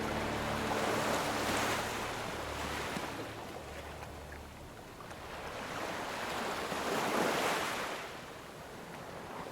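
Ocean waves breaking on a shore, two swells surging and washing back, the first about a second and a half in and the second near the seven-second mark.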